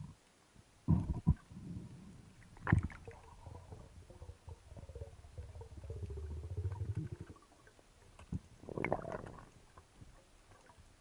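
Muffled underwater sounds of a freediver at work: a few sharp knocks in the first three seconds, a low bubbling rumble in the middle, and a short gurgle of bubbles near the end.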